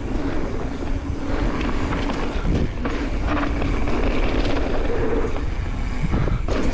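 Transition Smuggler mountain bike rolling fast downhill on a dirt trail: a steady rumble of knobby tyres over the ground with scattered knocks from the bike over bumps, and wind buffeting the action camera's microphone.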